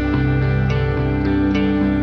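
Instrumental background music: plucked notes over sustained tones at a steady, even level.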